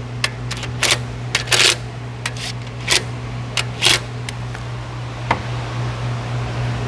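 Irregular sharp clicks and clinks of hand tools on the engine while the ignition coil bolts are tightened down, over a steady low hum.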